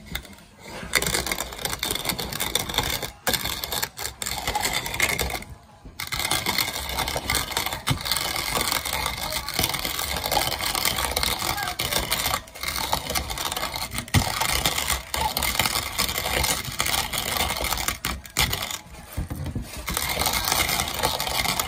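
Hand-cranked wooden box coffee mill grinding whole coffee beans: a continuous gritty crunching and rattling as the crank turns, stopping briefly a few times.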